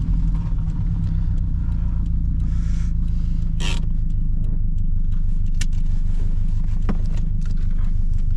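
Modified car's engine idling with a steady low rumble, heard from inside the car. A brief hiss about three and a half seconds in, and a few faint clicks.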